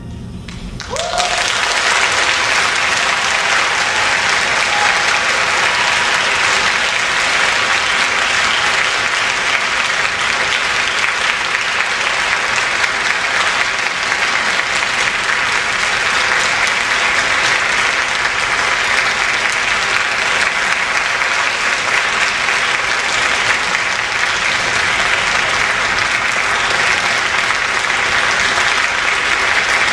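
Concert audience applauding, the clapping swelling in about a second in and then continuing steadily.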